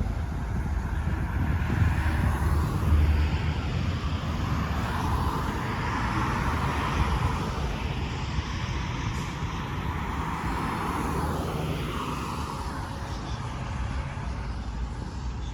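Road traffic: vehicles passing, a steady rumble of engines and tyres that swells in the middle as a larger vehicle goes by.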